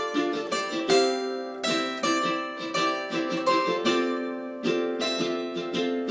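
Music played on a plucked string instrument: a melody of picked notes, about three a second, each ringing briefly.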